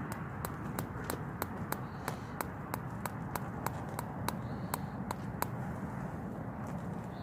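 Steady rushing noise, with sharp, evenly spaced ticks about three a second, while water heats for coffee on a camping stove.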